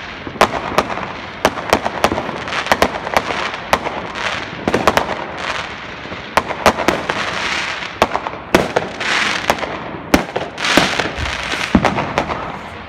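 Fireworks and firecrackers going off all around: many sharp bangs and pops at irregular intervals, with a few stretches of hissing crackle in between.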